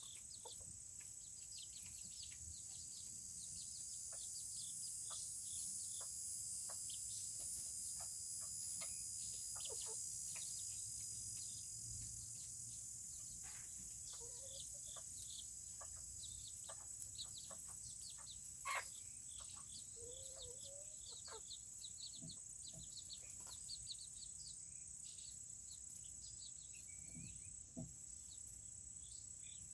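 Serama chickens clucking and peeping softly, with a sharper call at about 19 seconds, over a steady high trilling of insects.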